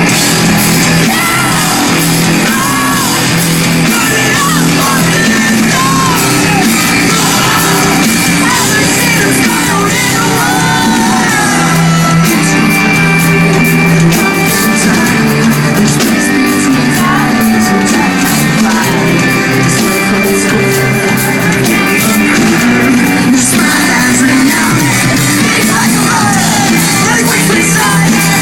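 Live rock band playing loudly, with sung and shouted vocals, echoing in a large hall.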